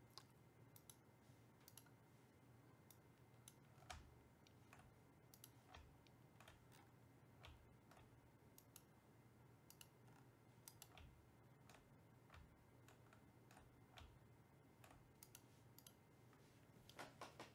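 Near silence: room tone with a faint steady low hum and faint, irregular clicks scattered throughout.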